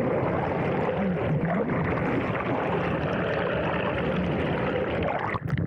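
Muffled rushing of water heard through an action camera held underwater beside a moving boat, steady and dense. It cuts off sharply near the end as the camera leaves the water.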